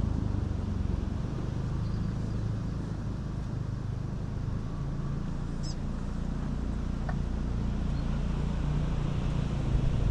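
Low, steady rumble of an engine running, with wind noise on the microphone.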